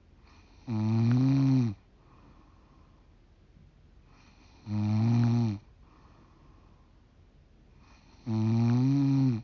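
A 45-year-old woman snoring: three loud, low-pitched snores of about a second each, roughly every four seconds, with softer breathy sounds between them.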